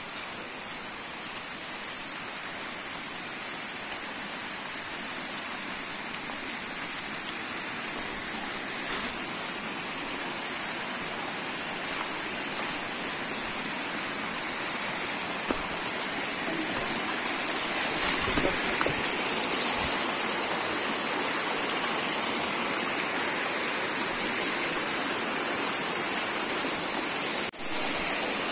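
Mountain stream rushing over rocks: a steady noise of running water that grows gradually louder.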